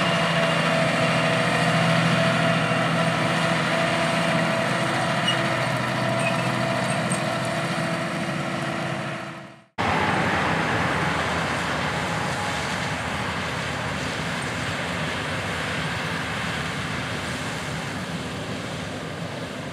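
Large diesel farm machinery running steadily, with a level engine tone. About ten seconds in, the sound fades out and cuts to a noisier, rushing machine sound, likely a combine harvesting corn, which slowly gets quieter.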